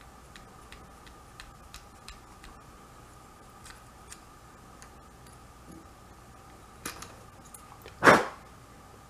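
Pin vise turned by hand, drilling a small wire-gauge bit into a plastic locomotive chassis, giving faint irregular ticks as the bit cuts. About eight seconds in comes a single louder knock.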